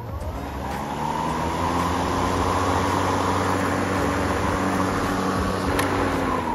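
Cordless 40V electric lawn mower running: the motor and blade spin up with a rising whine, run steadily with a rushing hum, then cut off at the end.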